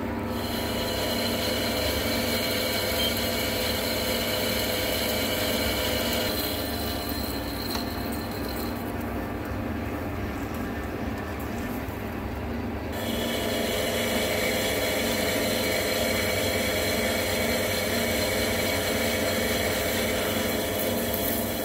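Hafco centre lathe turning a high-tensile steel hydraulic cylinder piston, the carbide insert tool cutting the steel with a steady whine over the lathe's running drone. The high cutting whine fades out about a third of the way through and comes back louder a little past the middle.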